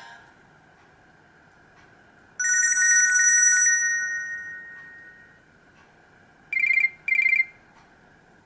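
Nokia C3-01 phone playing built-in alert tones. About two seconds in, a rapidly warbling two-note electronic telephone-style ring starts loud and fades out over about three seconds. Two short electronic beeps follow near the end.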